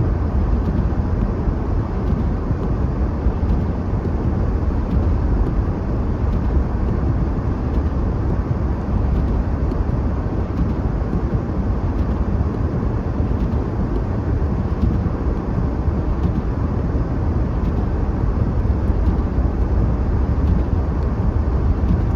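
Steady low rumble and hiss of a car driving along at an even pace, heard from inside the cabin: engine and tyre noise with no change in speed.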